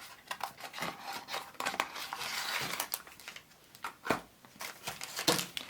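Small cardboard mystery pin box being opened and handled by hand: a string of sharp clicks and taps, with a stretch of rustling packaging about one and a half to three seconds in.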